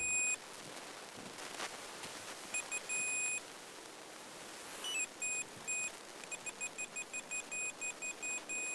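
Electronic fishing bite alarm set to roller sensing, beeping as line is pulled over its roller wheel. A few scattered beeps, some short and one longer, turn from about six seconds in into a steady run of about four beeps a second: a pike running with the ledgered deadbait.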